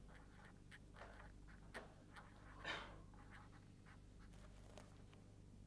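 Faint writing on a board, a few light taps and scratches with one longer stroke about halfway, over a low steady room hum.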